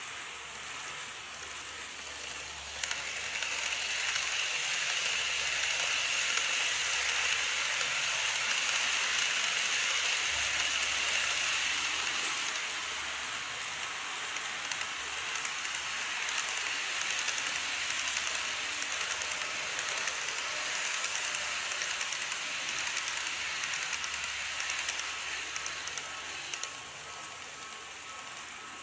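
Model railway train running on its track, a steady rattling hiss of the wheels with a thin motor whine. It gets suddenly louder about three seconds in, is loudest for the next ten seconds, and drops away abruptly near the end.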